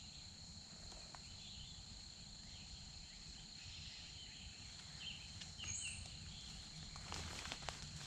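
Faint woodland ambience: insects trilling steadily in two high pitches, with scattered short bird chirps. Light rustling and clicks come in near the end.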